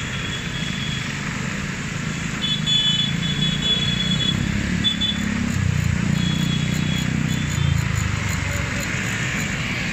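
A long procession of Vespa scooters passing close by, their small engines running in a continuous drone, with tyres hissing on the wet road. A thin high-pitched tone sounds on and off over it.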